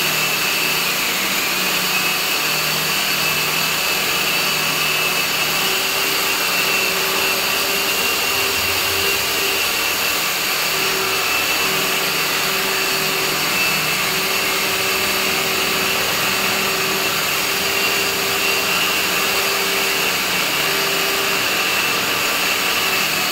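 Handheld electric core drill running steadily, its core bit boring through the concrete wall of a sump: a constant motor whine over steady grinding noise.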